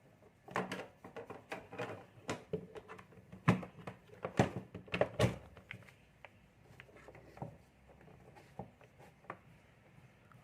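A run of sharp clicks and knocks from hands handling electrical wiring and a plug. The clicks come thick and loud in the first half, then thin out to faint ticks.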